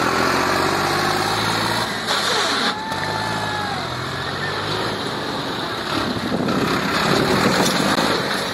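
Farmtrac 60 tractor's three-cylinder diesel engine running hard under throttle as the tractor is reared up onto its rear wheels in a wheelie stunt. The revs dip and climb again about two seconds in and once more around six seconds in.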